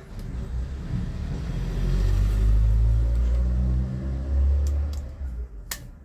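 Motor vehicle engine passing by: a low rumble that builds over the first two seconds, holds, then fades near the end. A single sharp click comes just before it dies away.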